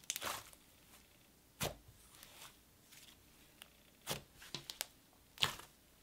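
Thick icy slime being pressed and squeezed by hand: a handful of short, soft, sticky squishes with quiet gaps between.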